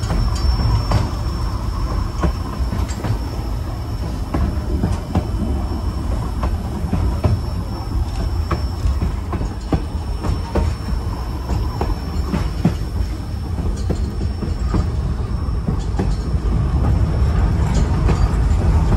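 White Pass & Yukon Route narrow-gauge train running along the track: a steady low rumble with irregular clicks and knocks from the wheels and cars.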